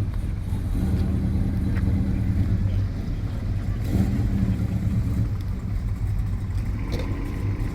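Big-block V8 engine of a classic car running near idle with a steady low rumble, briefly a little stronger about a second in and again around four seconds in.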